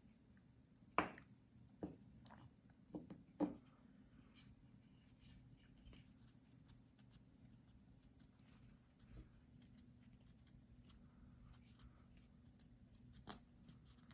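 Near silence with a faint low hum, broken by a few sharp clicks and taps in the first four seconds and then light scratchy ticks. These are handling noises as a small metal screw eye is twisted by hand into a balsa rocket nose cone.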